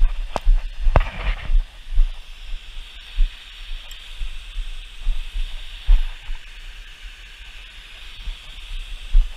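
Irregular deep thumps and rumble under a steady high hiss, with a few sharp clicks near the start and about six seconds in.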